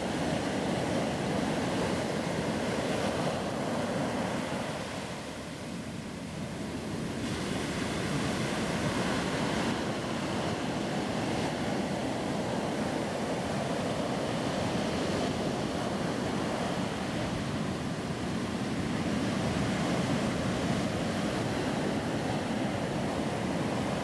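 Small sea waves breaking and washing up a sandy beach: a continuous surf wash that eases for a moment about five seconds in, then builds again.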